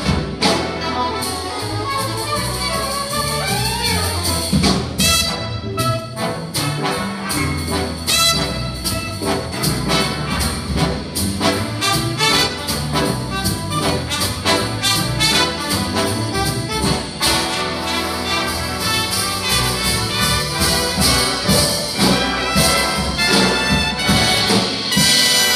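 A jazz big band playing live, the brass section of trumpets and trombones prominent over the rhythm section, with frequent sharp accents.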